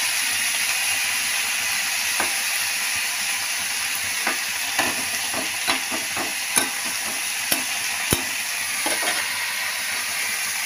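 Chopped radish greens sizzling as they stir-fry in oil in a steel kadai, with a steady hiss. A spatula clicks and scrapes against the pan about eight times, at irregular intervals.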